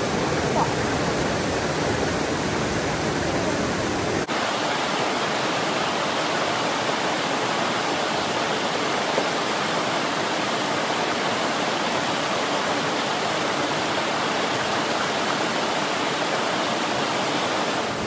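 Steady rush of a waterfall and a small cascade pouring over rocks into a pool. About four seconds in the sound changes abruptly at an edit, and the deep rumble drops out.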